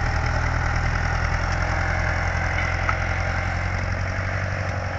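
Vintage farm tractor engine running steadily with a deep, even drone.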